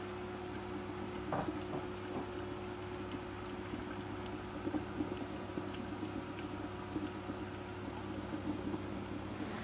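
Thick ogbono and okra soup bubbling under a glass pot lid, with small soft pops over a steady low hum.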